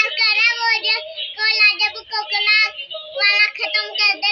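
Battery-powered dancing and talking toy playing a song in a high-pitched singing voice.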